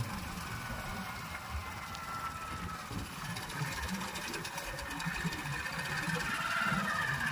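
Small motorcycle engine running with a fast, uneven rattle while riding along the road at low speed.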